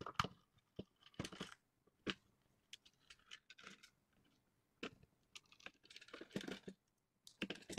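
Small screwdriver working the screws of a handheld meter's plastic case, then the case halves being handled and pulled apart: faint, irregular plastic clicks and short scrapes.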